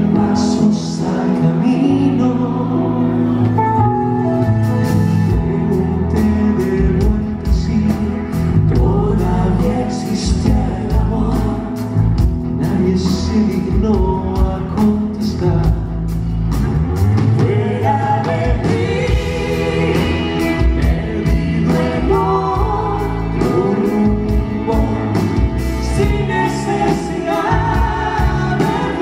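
Live pop duet: a man and a woman singing into microphones over a band with bass guitar and keyboards, driven by a steady beat.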